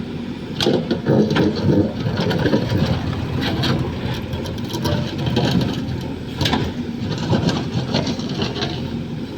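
A machine's engine running steadily, with scattered clanks and knocks over it.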